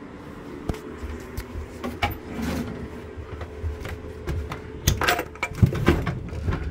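Scattered clicks, knocks and rustles of someone moving through a closet and handling things on a wooden shelf, busiest near the end, over a steady low hum.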